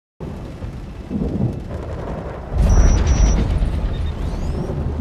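Film sound design: a deep rumble with a rain-like hiss that swells about two and a half seconds in. Two short high electronic beeps sound just after the swell.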